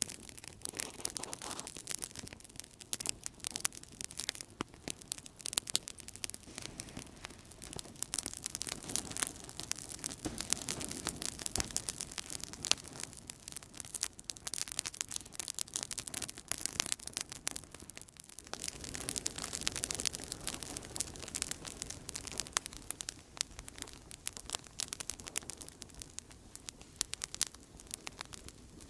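Outdoor campfire burning steadily, with a dense run of small crackles and snaps and an occasional louder pop over a soft hiss.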